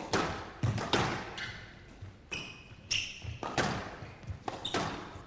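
Squash rally: the ball is struck by rackets and thuds off the court walls in a string of sharp impacts, with a short lull near the middle. Shoes squeak briefly on the court floor.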